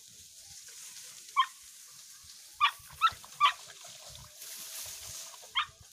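Dogs yelping: one short high yip, then three in quick succession, and one more near the end.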